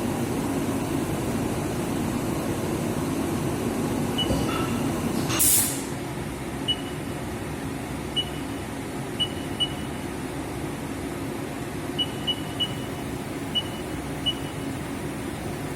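Haas VF4 CNC vertical machining center running with a steady hum. About five seconds in there is a short loud hiss of air, followed by a series of short, high, irregularly spaced beeps.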